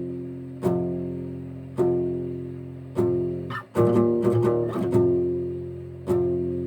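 Old warped acoustic guitar played in a slow, dark metal riff: chords struck and left to ring out about a second apart, with a quick run of picked notes around the middle.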